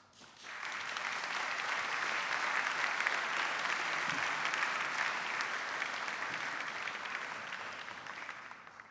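Audience applauding: the clapping builds within the first second, holds steady, then tails off near the end.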